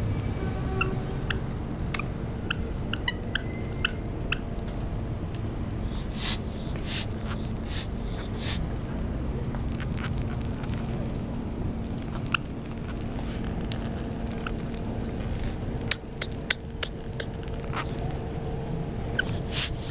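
Rainbow lorikeets close to the microphone: a few short, thin chirps in the first seconds, then scattered sharp clicks and short scratchy bursts, bunched together in two spells.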